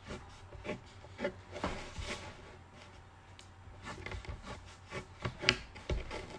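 Crayon scratching across paper in short strokes, one run about a second in and another from about four seconds in, the loudest stroke near the end, followed by a light low thump.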